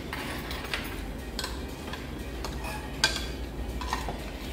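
Metal chopsticks and spoons clinking and tapping against bowls and dishes while eating: scattered light clicks, with one sharper clink about three seconds in.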